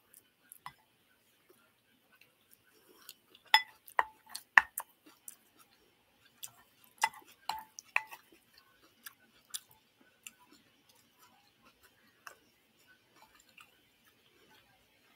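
A person chewing food close to the microphone, with sharp wet clicks and crunches from the mouth, loudest in a cluster a few seconds in and again around seven to eight seconds, then fainter and sparser.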